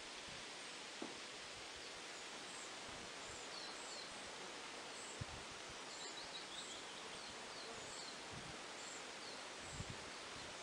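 Outdoor nature ambience: a steady hiss of background noise with small birds chirping in short, high calls every second or so. A few soft, low thumps come about a second in, around five seconds in and near the end.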